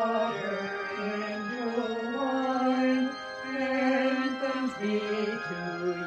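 Hymn music: a slow melody of long held notes that change step by step about once a second.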